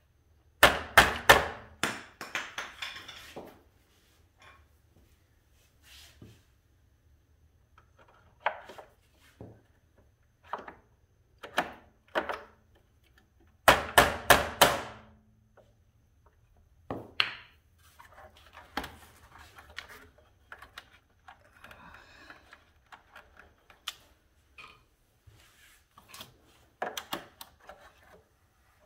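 Mallet tapping a screwdriver to knock a plastic blank switch plug out of an Indian Challenger's inner fairing. The sound is short, sharp taps: a quick run of several about a second in, another run about halfway through, and single taps scattered between.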